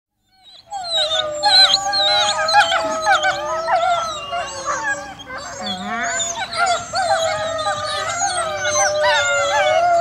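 Pack of wolves howling together close up, several long howls overlapping at different pitches, with whining mixed in. The sound starts suddenly just under a second in.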